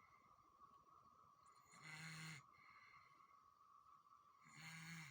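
A baby snoring softly while asleep: two short snores, each about half a second long and about two and a half seconds apart, following the baby's breathing, over a faint steady high tone.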